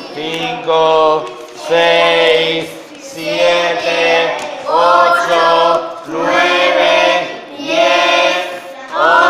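A group of children singing together in unison, in short sung phrases about a second long with brief breaks between them.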